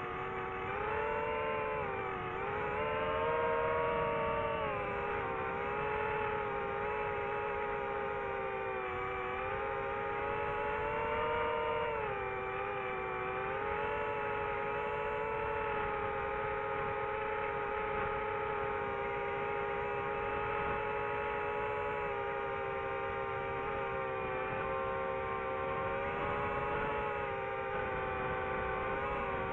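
DJI FPV quadcopter's propeller motors whining in flight, recorded by the drone's onboard camera. The whine dips and rises in pitch with throttle in the first few seconds and again about twelve seconds in, and otherwise holds fairly steady.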